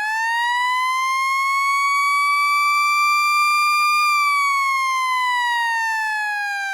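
Galls Q siren winding up in a single wail. Its pitch climbs fast, then more slowly to a peak about four seconds in, then falls slowly.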